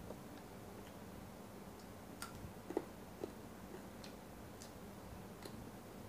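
Faint, irregular small clicks and smacks of a person eating at the table, chewing with the mouth, over a low steady room hum; the sharpest click falls near the middle.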